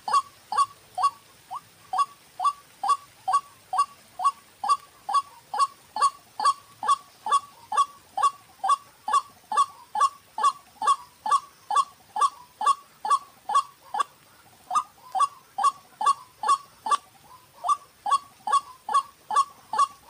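White-breasted waterhen calling in a long, fast series of short, loud notes, each falling in pitch, about two to three a second, with a brief break about two-thirds of the way through.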